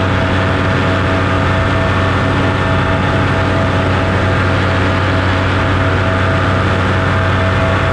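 Steady, unchanging motor drone with a rush of air, from the aircraft carrying the camera in flight.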